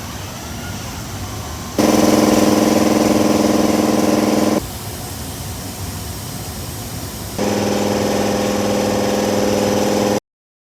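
Astro Onyx 3/8-inch right-angle impact wrench run in two bursts of about three seconds each, at a steady pitch, with a steady hum underneath, as it works bolts loose.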